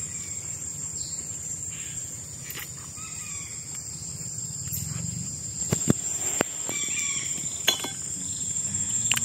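Insects droning with a steady high-pitched whine, with scattered short bird calls. A few sharp knocks come about six seconds in and one more near eight seconds.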